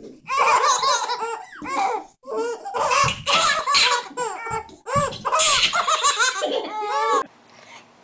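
Twin babies laughing together in repeated bursts of belly laughs. The laughter cuts off suddenly near the end.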